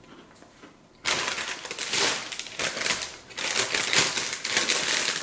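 Crinkling paper snack bag and crunching chocolate-covered potato chips. A dense run of crackles starts about a second in and carries on.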